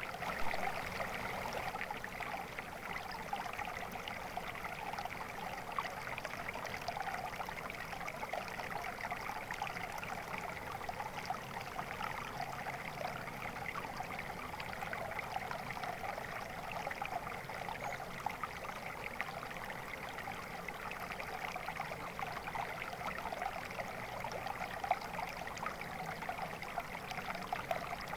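Water flowing and trickling steadily over stones in a small stream, a continuous babbling.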